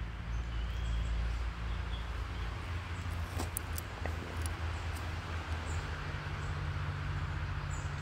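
Steady low hum with a few faint ticks over outdoor background noise.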